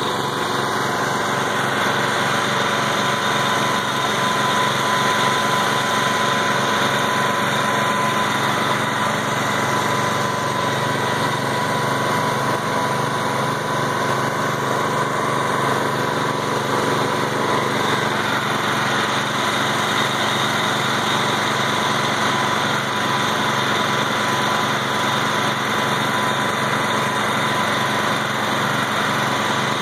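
Engine of a homemade hydraulic water well drilling rig running steadily while it drills, with an even pulsing beat and a thin steady whine over it.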